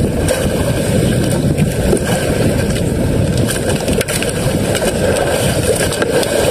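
Strong wind buffeting the microphone over choppy sea around a small outrigger fishing boat: a steady, dense low rush with no letup.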